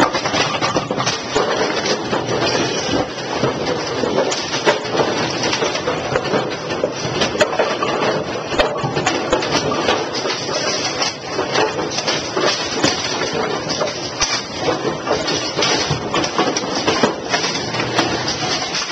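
AMF 82-70 automatic pinsetters running: a loud, continuous mechanical clatter with frequent sharp knocks of pins and machine parts as the setting deck lowers and places the pins.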